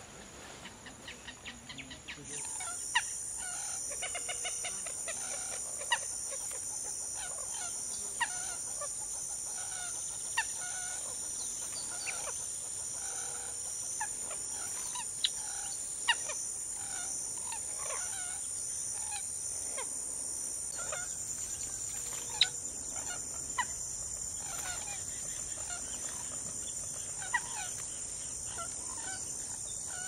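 Steady high-pitched insect chorus, starting about two seconds in, with birds calling over it: repeated mid-pitched calls and a sharp single chirp every few seconds, the chirps being the loudest sounds.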